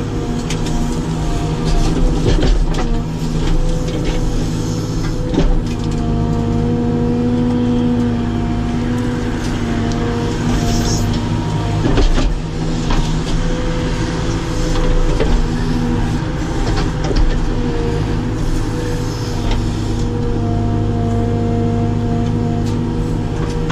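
Caterpillar 432F2 backhoe loader's diesel engine running steadily under load, heard inside the cab, with a whine that comes and goes as the backhoe is worked. A few sharp knocks come through as the bucket digs, the loudest about two, five and twelve seconds in.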